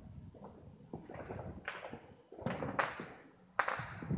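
Fireworks and firecrackers going off around the neighbourhood: a string of sharp bangs, each trailing off in an echo, the loudest near the end.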